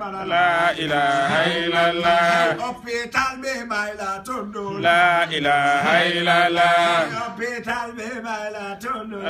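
Men's voices chanting an unaccompanied Islamic devotional chant, in long held melodic phrases: two strong phrases, one just after the start and one about five seconds in, with softer chanting between.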